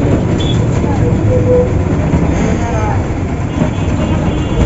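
Steady engine and road rumble with rattling heard from inside a moving state-transport bus, with short, faint horn toots a little over a second in and again at the end.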